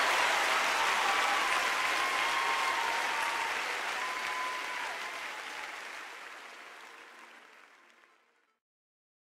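A congregation applauding, the clapping fading out steadily over the last few seconds until it is gone.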